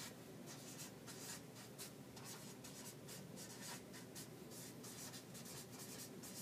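Marker pen writing on a flip-chart pad: a quick, uneven run of short, faint scratchy strokes as words are written.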